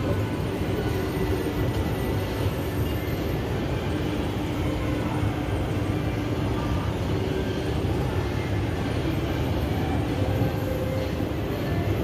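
Shopping-mall ambience: a steady low hum and rumble with no clear voices, and faint short tones in the background.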